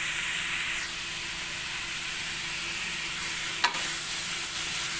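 Cubed pork belly sizzling in a non-stick wok with no oil added, the fat only just beginning to render. A wooden spatula stirs the pieces, with one sharp knock against the pan about three and a half seconds in.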